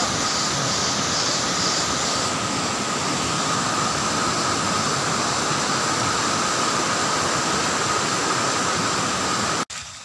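Steady rush of stream water flowing over rocks, with a faint steady high tone running through it, cut off abruptly near the end.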